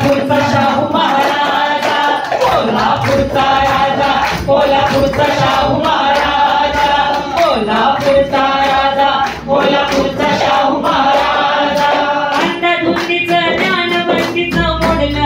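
Marathi powada ballad sung into a microphone with hand-drum accompaniment: long held sung notes over a steady drum beat.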